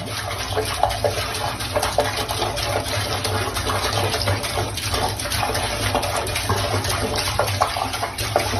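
Steady rush of running water, with a low hum underneath.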